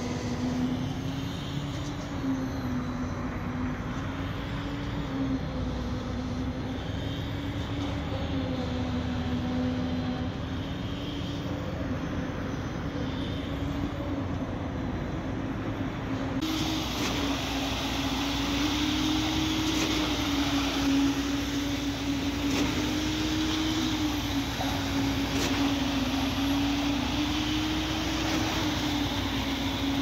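Diesel engine of a truck-mounted concrete boom pump running steadily at high revs while pumping, a continuous drone whose pitch rises and falls slowly every few seconds.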